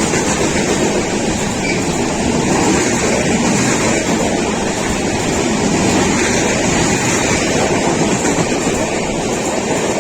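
A train running, a steady loud rumble and rushing noise with no break.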